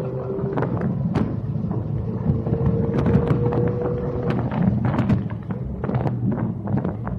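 McLaren 720S twin-turbo V8 running, heard from inside the cabin: a steady low drone with a whine that drifts slightly in pitch, overlaid by many sharp clicks and knocks.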